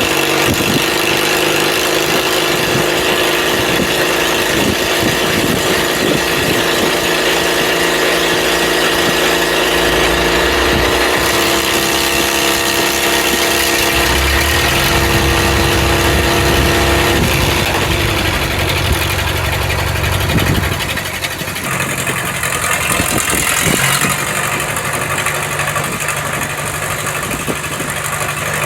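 Sawmill engine running steadily, its speed and load shifting several times.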